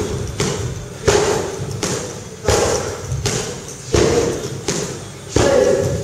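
Knee strikes thudding into a hanging heavy punching bag, about five hits at uneven intervals, each ringing on in the large sports hall.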